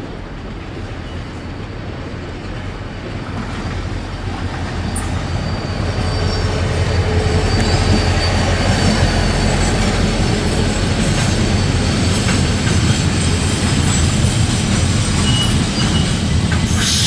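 A train running on the rails and coming closer, its rumble growing louder over about the first six seconds and then holding steady. A faint high wheel squeal comes through partway along.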